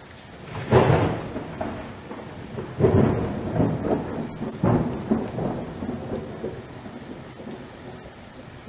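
Thunderstorm: three claps of thunder about two seconds apart, each rolling off into a rumble, over steady rain.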